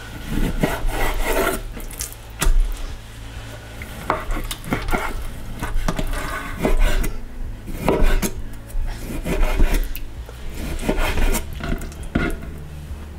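Chef's knife slicing through a raw salmon fillet on a wooden cutting board: irregular rasping slicing strokes and sharp taps of the blade against the board, over a steady low hum.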